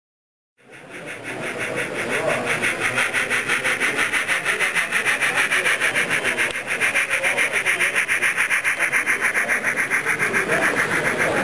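H0 model train running past on the layout track, a steady rubbing whirr from its motor and wheels on the rails that pulses evenly several times a second. It starts suddenly about half a second in.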